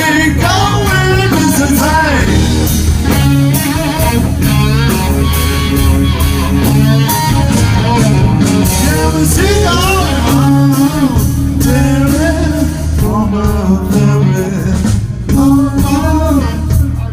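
Live rock band playing: an electric guitar lead full of bent notes and vibrato over bass guitar and drums.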